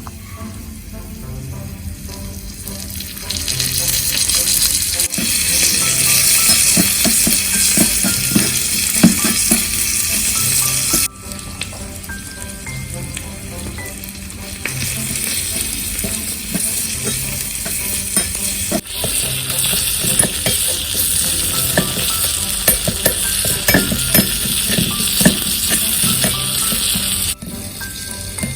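Food sizzling and frying in a tiny miniature pan, with light scrapes and taps as it is stirred. The sizzle jumps louder about 3 s in, drops suddenly near 11 s, rises again near 19 s and falls near the end.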